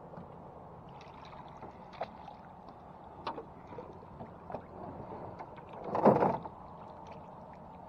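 Water lapping and sloshing against a small boat, with scattered light knocks and clicks of gear on the hull. A loud splash comes about six seconds in.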